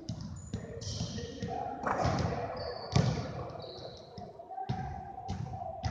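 Basketball dribbled on a hardwood gym floor, a handful of uneven bounces with short high squeaks between them.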